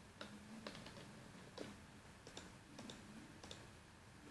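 Faint computer mouse clicks, several scattered sharp clicks over quiet room tone.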